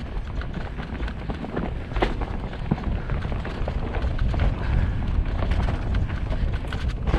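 Mountain bike riding fast down a rough dirt forest trail: heavy wind rumble on the microphone, with the tyres on dirt and frequent rattles and knocks from the bike over stones and roots, the sharpest about two seconds in.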